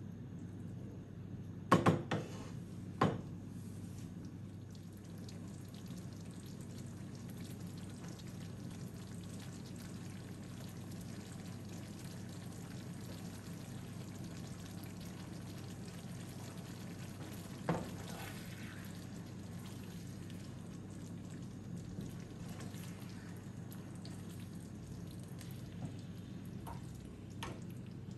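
Beef in cream sauce sizzling steadily in a pan as it is stirred with a wooden spatula. A few sharp knocks of the spatula against the pan come twice about two and three seconds in, and once more about two-thirds of the way through.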